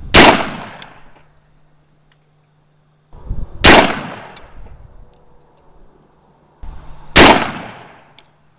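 Three high-powered rifle shots fired at padlocks, about three and a half seconds apart, each a sharp crack with a metallic clang and an echo fading over about a second.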